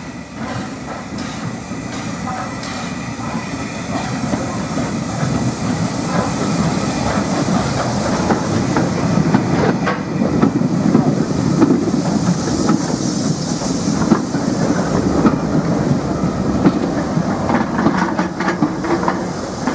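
Steam train of the Isle of Wight Steam Railway, hauled by O2 0-4-4 tank locomotive W24 Calbourne, rolling into the platform, with its carriages' wheels clacking over the rail joints close by. It gets louder as it draws near, and a hiss of steam comes in partway through.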